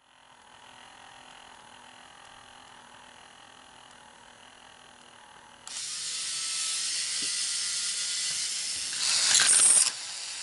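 K'nex coaster's motor-driven cable launch mechanism running, starting abruptly about six seconds in with a steady mechanical noise, then a louder burst of about a second near the end.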